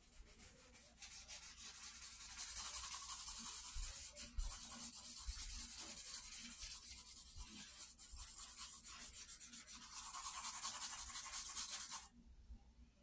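Charcoal stick scratching across sketchbook paper in fast back-and-forth shading strokes. It starts about a second in and stops abruptly near the end.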